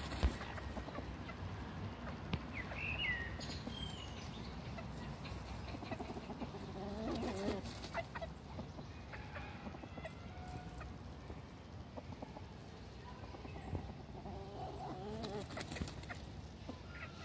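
Chickens clucking, with low clucking calls about seven seconds in and again near the end, and a few short high chirps around three seconds in.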